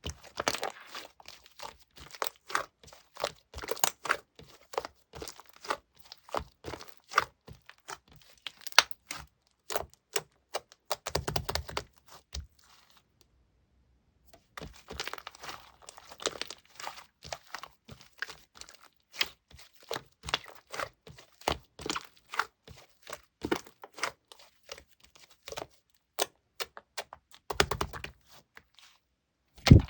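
Slime being squished and stretched by hand, giving off rapid sharp clicking and crackling pops. There are two denser bursts of crackling, and the sound stops for about two seconds near the middle.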